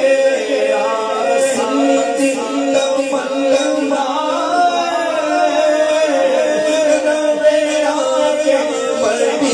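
A man singing a devotional naat in long, wavering held notes, over a steady lower held tone.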